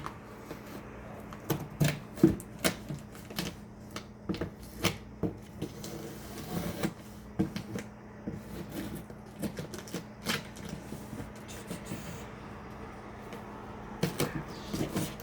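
Irregular clicks, taps and crinkles of a cardboard shipping box and its packaging being handled and opened by hand.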